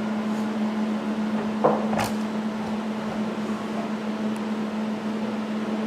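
A steady machine hum, like a fan or motor running, with two light knocks about two seconds in.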